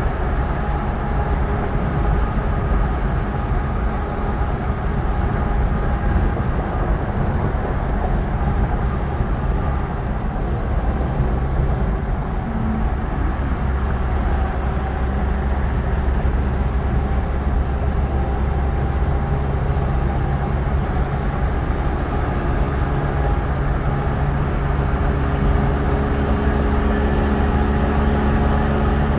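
Red Peterbilt semi-truck running at highway speed alongside, a steady diesel drone mixed with heavy tyre and wind noise. The engine's pitched hum grows more distinct near the end as the truck draws close.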